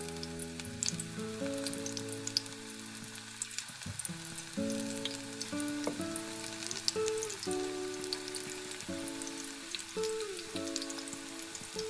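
Battered spinach and onion fritters deep-frying in hot oil: a steady sizzle with frequent sharp crackles as freshly added fritters bubble. Soft background music with long held notes plays underneath.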